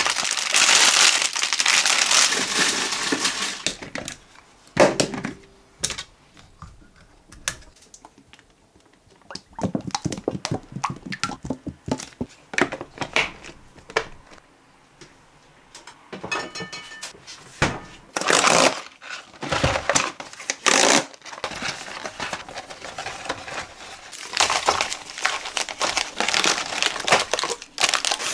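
Plastic packaging crinkling and rustling in stops and starts as it is handled, with scattered sharp clicks and knocks.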